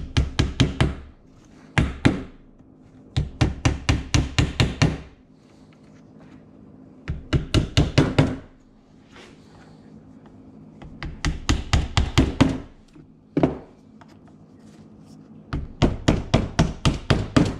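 Claw hammer tapping short plastic pipe pegs into drilled holes in a wooden board. The blows come in quick runs of about five to nine, several a second, with short pauses between the runs.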